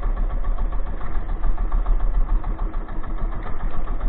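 Small fishing boat's engine running steadily at a low, even idle, with a strong low hum.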